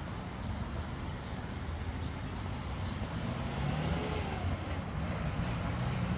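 City street traffic: a steady hum of car and minibus engines and tyres, with a low engine drone that grows slightly louder.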